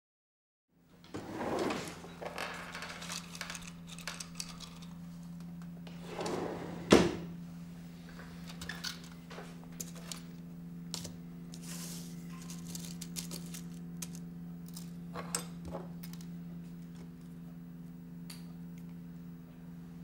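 Small electronic parts and hand tools being handled at a workbench: light rattling, rustling and scattered clicks, with one sharp click about seven seconds in. Under it a steady low hum sets in about a second in.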